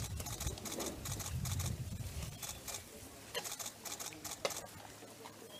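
Bottle-fed African elephant calves making a low rumbling for about the first two seconds, which then fades. Rapid clicks and patter run throughout.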